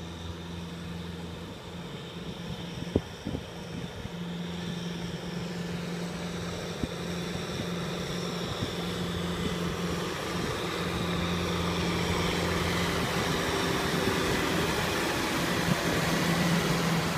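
Tractor diesel engine running steadily while pulling a rotary tiller through a flooded rice paddy. It grows louder as the tractor comes closer.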